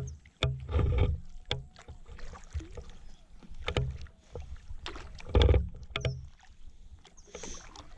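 Kayak being paddled: the paddle dips and splashes through the water, with irregular knocks and low thuds against the boat. The loudest knock comes about five and a half seconds in, and a short splash follows near the end.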